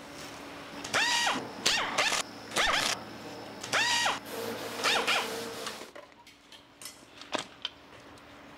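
Pneumatic nut runner whining in about five short runs, the pitch rising and falling in each, as it drives bolts into an engine crankcase. It is quieter after about six seconds, with a single sharp click near the end.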